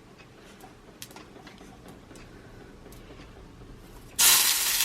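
Kitchen work sounds: a few faint taps, then about four seconds in a sudden loud hiss that lasts well under a second.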